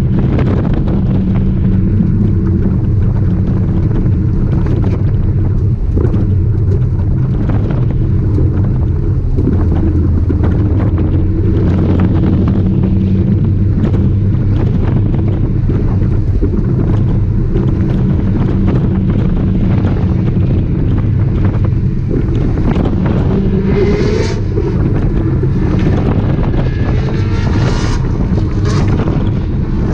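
BMW E36 3 Series engine running hard, heard inside the cabin with road and wind noise. From about 23 seconds in its pitch rises as it revs higher.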